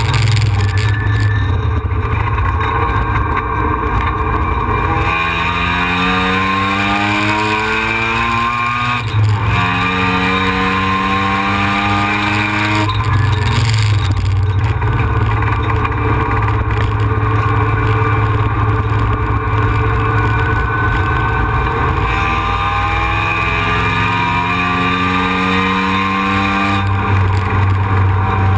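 Mazda RX-7 FD3S's twin-turbo 13B rotary engine at full track speed, heard inside the cabin: its pitch climbs in three long pulls, about five, nine and twenty-three seconds in, each broken off by a drop, over steady road and wind noise.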